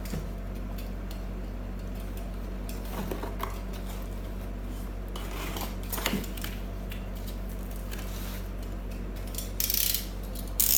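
Hands handling unboxed packaging and hardware, with scattered clicks and rustles and a louder rustle near the end, over a steady low electrical hum.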